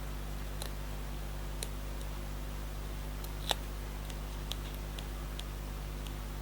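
Faint small clicks and ticks as backing papers are peeled off adhesive foam pads, with one sharper tick about three and a half seconds in, over a steady low electrical hum.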